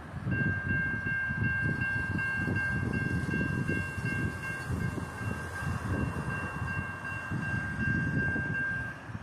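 Norfolk Southern diesel locomotive's air horn sounding one long chord of several notes, held for about eight and a half seconds, over the low rumble of the approaching freight train.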